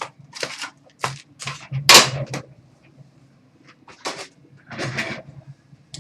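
Trading cards and their cardboard and plastic packaging being handled: a series of short, sharp rustles and snaps, the loudest about two seconds in.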